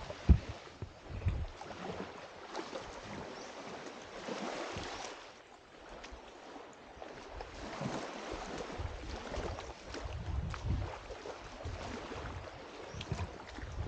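Surf washing on a beach with wind gusting on the microphone, and a single sharp thump just after the start.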